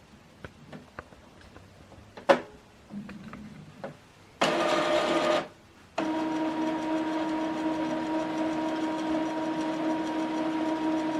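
Epson WorkForce inkjet printer running its ink-check maintenance cycle after new cartridges are fitted: light clicks and one sharp clack, a short motor run about four seconds in, then from about six seconds a steady, humming motor whir.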